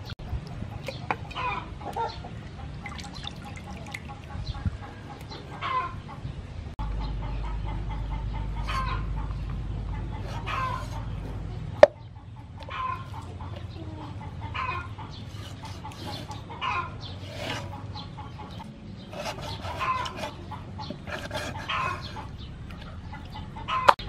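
Chickens clucking repeatedly, short calls every second or two. One sharp knock about halfway through.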